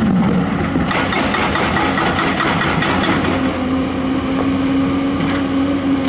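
Hydraulic excavator digging into broken limestone, its diesel engine running under load while rock knocks and clatters against the steel bucket, the knocks thickest in the first half. A steady engine hum holds through the rest.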